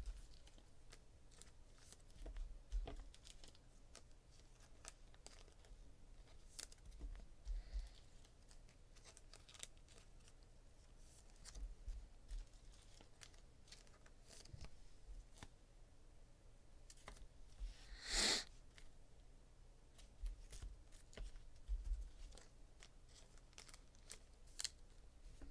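Faint handling noises: scattered light clicks and rustles of trading cards and packaging being handled, with one louder rustle about eighteen seconds in.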